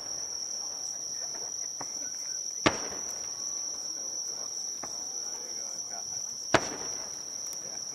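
Two aerial firework shells bursting, about four seconds apart, each a sharp bang with a trailing echo. Under them runs a steady high chirring of insects.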